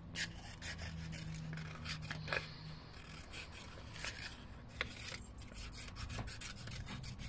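Scissors cutting through a sheet of painted paper: scattered sharp snips with the paper rubbing and rustling between them.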